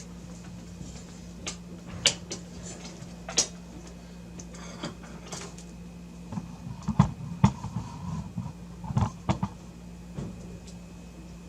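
Small plastic clicks and knocks of PCIe power cables being laid and their connectors pushed into riser cards, with a cluster of louder taps and thumps about six to nine seconds in, over a steady low hum.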